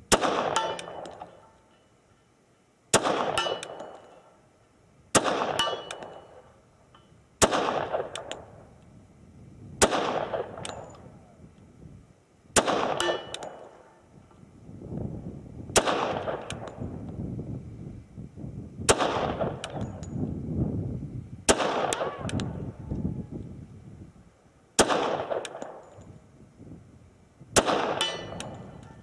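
H&K Mark 23 .45 ACP pistol fired in slow single shots, about eleven in all, two to three seconds apart, each shot trailing off in a ringing echo.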